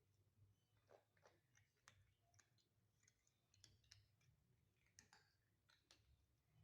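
Feral cats eating: faint, irregular clicks and crunches of chewing.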